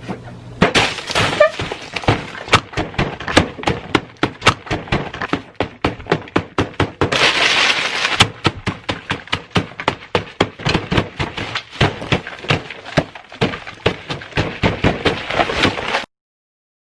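Close, loud crunching of crisp food being bitten and chewed, several sharp crunches a second, with a brief hiss about seven seconds in. It cuts off suddenly near the end.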